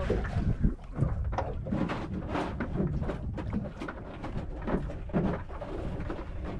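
Small waves lapping and slapping irregularly against the hull of a drifting boat, with short knocks and gurgles over a low wind rumble.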